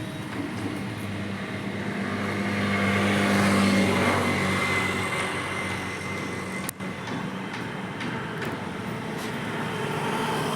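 A motor vehicle engine running with a steady low hum, growing louder to a peak about four seconds in and then easing off.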